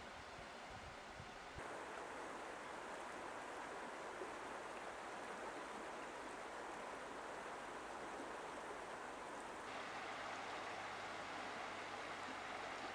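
Shallow river water flowing over stones: a steady, even rush.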